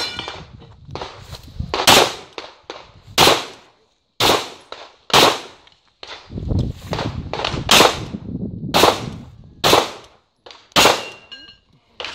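9mm Glock 34 pistol fired in a string of about nine sharp shots, roughly a second apart, with a longer pause midway through.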